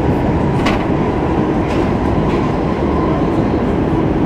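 Stockholm Metro C15 train running through a tunnel, heard from inside the carriage: a loud, steady rumble of wheels on rail with a faint steady whine. A few sharp wheel clicks on the track come about a second and two seconds in.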